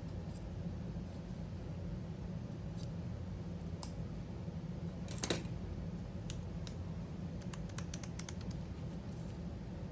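Light clicks and taps of a padlock and a small metal lock-pick tool being handled, a few scattered and a quick run of small clicks near the end, over a steady low hum.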